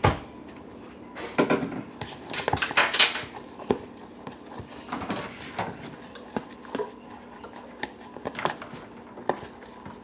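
A spoon clicking and scraping against a butter tub as thick slime is stirred, in irregular strokes that are busiest in the first few seconds and then thin out to single clicks. The slime has stiffened and come loose from the sides of the tub.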